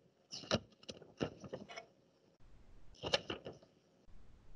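Pages of a paperback book being leafed through and handled: short, soft paper rustles and light knocks in a few clusters, with quiet gaps between.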